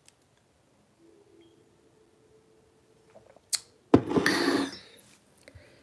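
A ceramic mug set down on a wooden tabletop with a sharp click and then a knock about four seconds in, followed by a short breathy rush. Before that, a few seconds of near quiet while she drinks.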